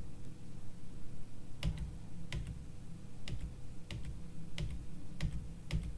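One computer key pressed over and over, about seven separate taps roughly two-thirds of a second apart, starting a little under two seconds in. Each press of the X key steps a video tracker back one frame.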